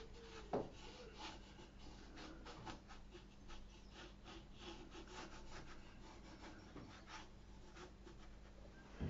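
Watercolour brush working on rough paper: faint, repeated scratchy dabs and strokes, with one light knock about half a second in.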